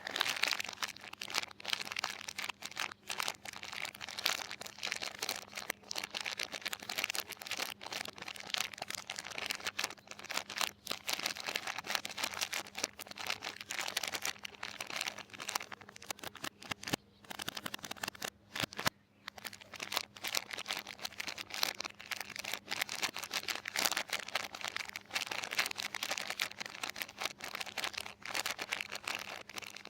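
Soap wrappers crinkling and tearing as bars of soap are unwrapped by hand: a dense run of crackles and rustles with two short pauses about two-thirds of the way through.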